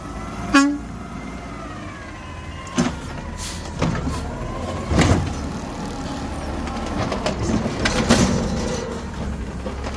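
Side-loader garbage truck running steadily, with several sharp clanks and knocks, the loudest about half a second in and about five seconds in.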